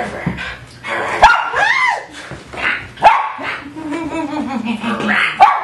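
Miniature Schnauzer barking: several sharp barks a second or two apart.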